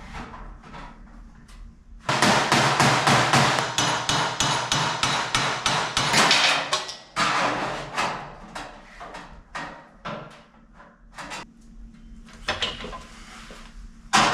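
Hammer striking sheet steel: a fast, steady run of blows for about five seconds from two seconds in, then a shorter run and scattered single strikes. The hammering is shaping a flange on a steel door skin.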